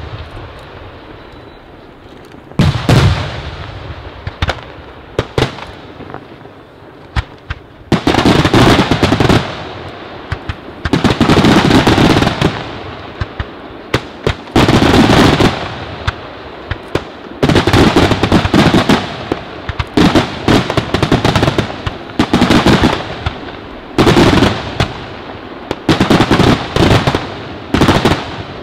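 Fireworks display by Senatore Fireworks: a few separate bangs at first, then from about eight seconds in, repeated volleys of rapid crackling reports, each lasting a second or two and coming every two to three seconds.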